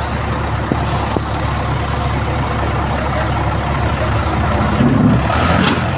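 Heavy diesel engine of a backhoe or tractor running steadily, its low note shifting about five seconds in.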